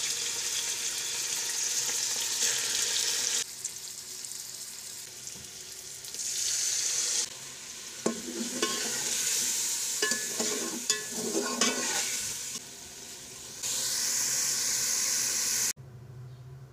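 Beef pieces and spice masala sizzling in hot oil in a metal pot, while a metal spatula scrapes and knocks against the pot as the meat is stirred. The sizzle stops and starts abruptly several times, and drops to a faint hiss near the end.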